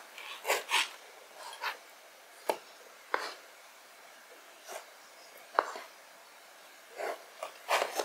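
Kitchen knife cutting through peeled potatoes onto a cutting board: an uneven series of short chopping and scraping strokes, several close together near the end.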